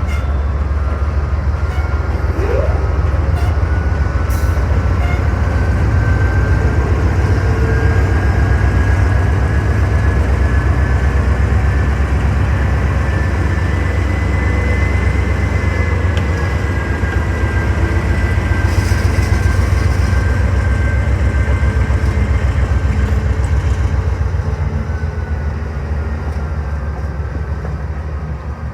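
Grain train's freight cars rolling past at close range: a steady, heavy rumble of wheels on rail with thin, slowly wavering high wheel squeals over it, easing off toward the end.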